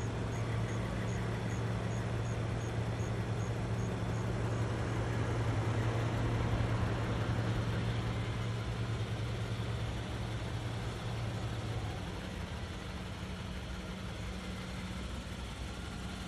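A car engine idling, a steady low hum; the lower part of the hum drops away about twelve seconds in. A faint, high ticking repeats two or three times a second over the first few seconds.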